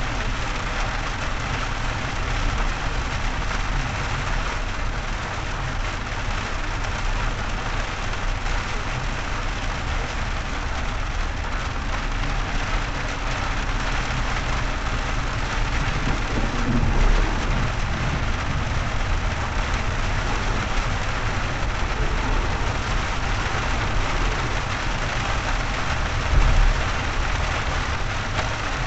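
Rain falling on a moving car, heard from inside the cabin, over steady road and engine noise. Two brief low thumps break through, a little past the middle and near the end.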